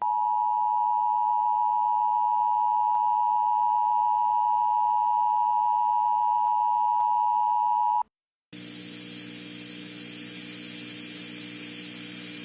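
Emergency Alert System two-tone attention signal: a loud, steady dual tone held for about eight seconds that cuts off abruptly. It marks the start of a new alert. After a brief silence, a fainter steady hum and hiss from the broadcast channel follows.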